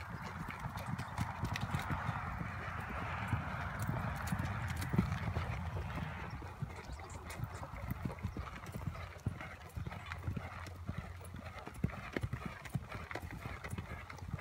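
Hoofbeats of a barefoot paint mare, an irregular run of dull clops. A steady rushing noise lies under them for the first six seconds or so, then fades.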